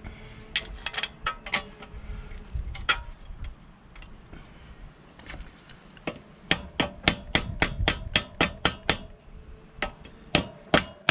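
Hand tools working on a motorcycle's front fork spindle clamp: a few scattered metallic taps, then from about six seconds in a quick, even run of sharp metal clicks, about four or five a second, for roughly three seconds.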